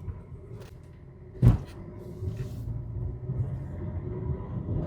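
Car engine running, heard from inside the cabin, with a single sharp thump about a second and a half in; the engine sound grows gradually louder over the last few seconds as the car gets under way.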